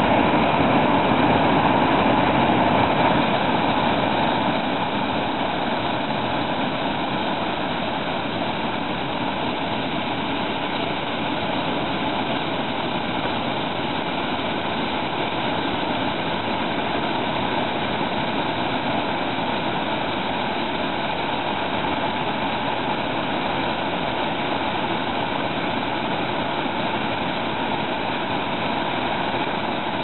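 Whitewater rapid pouring over and around boulders: a loud, steady rush of churning water, a little louder for the first four seconds or so and then even.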